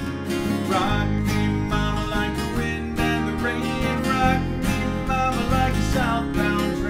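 Two acoustic guitars strummed together in a steady rhythm while a man sings the lead vocal.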